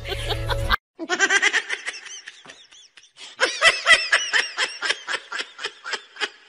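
High-pitched laughter in quick repeated bursts, starting about a second in after a short break, and densest in the second half.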